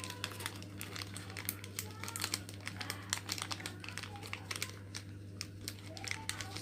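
Plastic-foil coffee sachet wrappers crinkling and crackling in irregular rapid bursts as they are folded and slotted together by hand, over a steady low hum.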